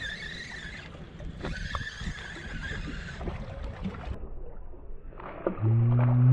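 Fishing reel cranked as a speckled trout is played to the boat, its gears giving a thin steady whine twice, over wind and water noise on the microphone. Near the end the hooked trout splashes at the surface and a man lets out a long, low, drawn-out 'ohh'.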